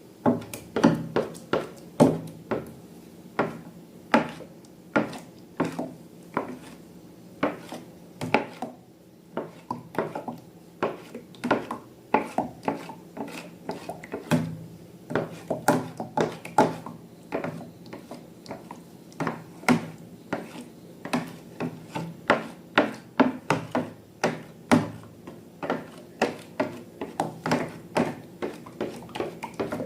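Slime being worked and mixed by hand: a steady run of sticky clicks and squelching pops, about two a second.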